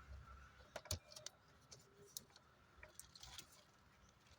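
Near silence with a few faint clicks and taps, the loudest about a second in.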